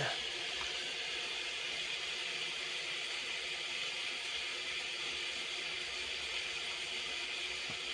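Steady rain: an even hiss that holds at one level throughout.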